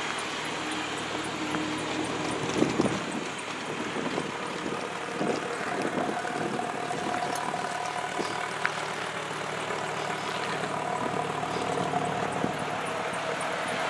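2006 Hummer H3's 3.5-litre inline five-cylinder engine idling steadily just after a cold start, heard from outside near the exhaust.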